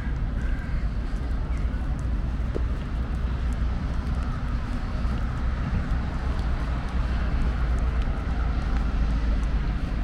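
Steady low rumble of city road traffic, with no distinct events standing out.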